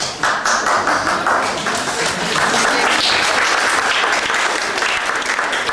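Audience applauding: dense clapping that starts abruptly and keeps up steadily.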